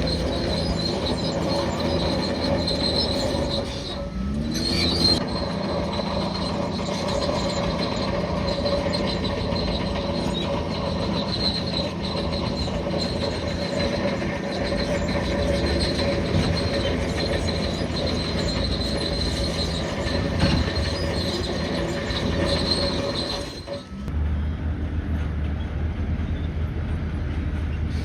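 Crawler bulldozer working, its diesel engine running under a steady high-pitched whine from the steel tracks. Near the end the sound changes abruptly to a steadier low engine drone without the high whine.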